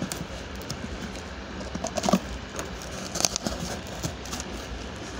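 A cardboard shipping box being cut open with scissors: scraping and snipping at the packing tape, with the cardboard rustling as it is handled. There are two louder rips, about two seconds in and again about three seconds in.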